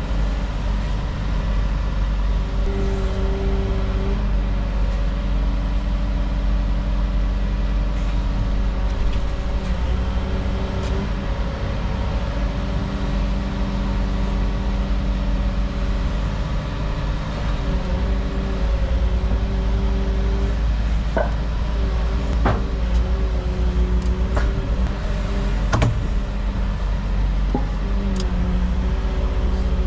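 Volvo EW160E wheeled excavator's diesel engine running steadily under work, with a tone that wavers up and down. A few sharp knocks come in the second half as paving tiles are pried up.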